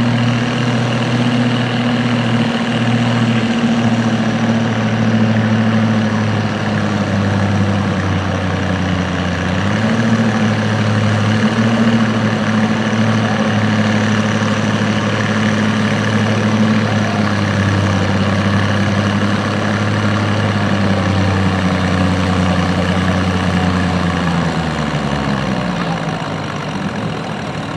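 Oliver farm tractor engine labouring at high load as it pulls a weight sled, holding a steady pitch with a brief dip about ten seconds in. Near the end the pitch sags and the engine drops off as the pull slows.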